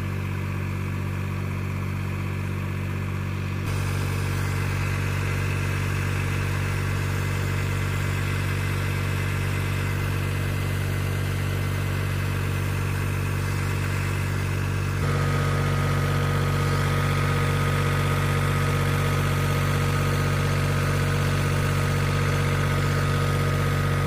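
Tractor's diesel engine running steadily at constant speed, driving a centrifugal water pump through its PTO shaft. The level steps up slightly about four seconds in and again about fifteen seconds in.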